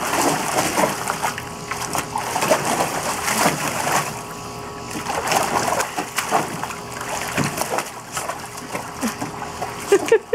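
Pit Bull mix puppy splashing and thrashing in a shallow plastic kiddie pool, water sloshing and splattering in irregular bursts.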